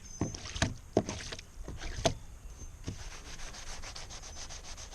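Hand scrubbing on a kayak's hull, rubbing stains off: a few separate scrubbing strokes at first, then quick, even back-and-forth strokes from about three seconds in.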